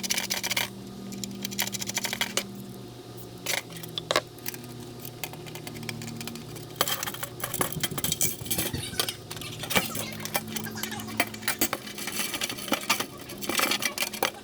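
Small metal mounting hardware (studs, nuts and washers) clinking and clicking against a metal cover plate as it is handled and fitted, in many irregular clicks that get busier about seven seconds in.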